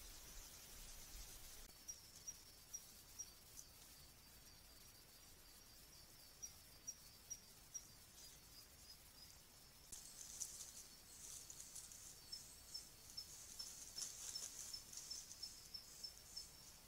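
Faint night insects: a thin, steady high trill with short chirps about two or three a second. From about ten seconds in, a denser high insect buzzing joins it.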